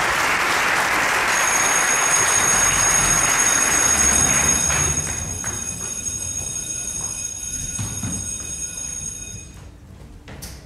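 Audience applause that dies away about halfway through, followed by quieter scattered footsteps and shuffling.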